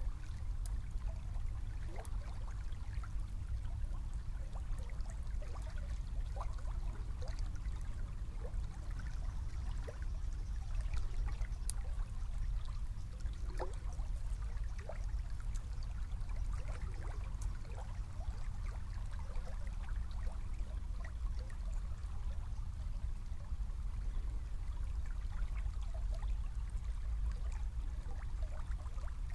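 A small river flowing, its water trickling and gurgling with many small scattered splashes and bubbles over a steady low rumble.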